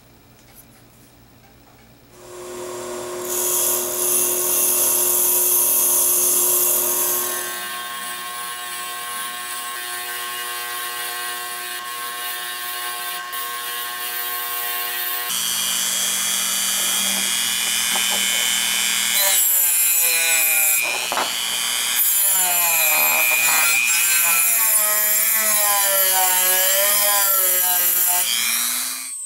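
A bench grinder with a fine brass wire wheel starts about two seconds in and runs with a steady whine and scrubbing noise as a brass binocular barrel is held against it to strip corrosion and old finish. About halfway through, a handheld rotary tool with an abrasive buff takes over; its whine wavers up and down as it is pressed onto the corroded brass, then stops at the end.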